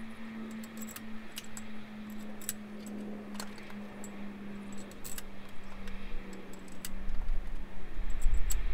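Steel cylinder-head bolts for a Ford Pinto engine clinking as they are handled and slotted into the bolt holes: a scatter of light metallic clicks. A steady low hum runs underneath, and a low rumble grows louder over the last few seconds.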